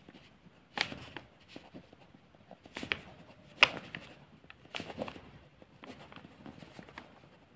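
Pen writing on paper: short, scattered scratching strokes, the loudest just before one second in and about three and a half seconds in.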